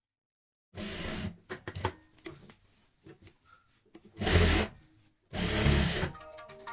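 Juki industrial sewing machine running in three short spurts of about half a second to a second each, starting about a second in, stitching a neckline through fabric and interfacing. Between the spurts, cloth is shifted and rubbed across the machine bed with light clicks.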